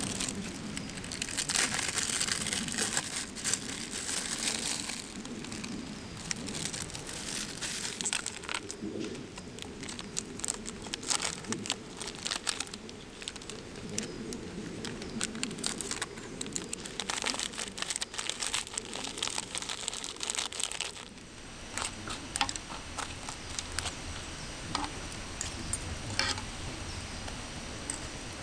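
Crinkling and rustling of something being handled, with many small clicks and knocks; the rustling is louder from about two to five seconds in and again from about seventeen to twenty-one seconds.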